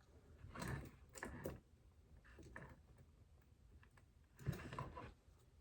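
Faint clicks and rustling of small parts being handled at a workbench, in three short clusters.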